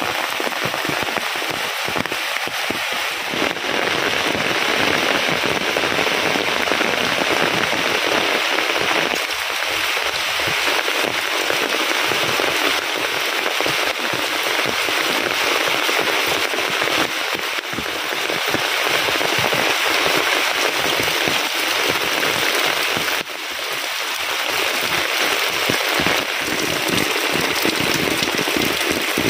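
Heavy rain pouring steadily on leaves and ground: a dense, even hiss with no let-up.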